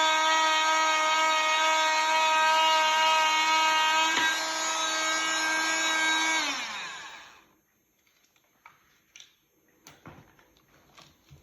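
Dremel oscillating multi-tool running at a steady high-pitched whine, with a brief knock about four seconds in. It is switched off at about six and a half seconds, its pitch falling as it winds down, followed by a few faint clicks of handling.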